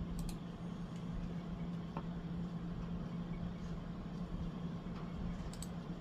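Hunter Comfort Breeze 36-inch ceiling fan running steadily, its motor giving a low, even hum.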